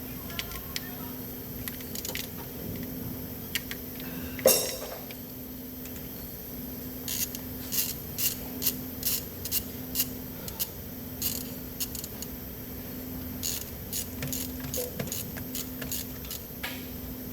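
Repeated short, sharp clicks and taps of hand tools working on the engine, roughly two a second in two runs, with one louder knock about four seconds in. A steady low hum runs underneath.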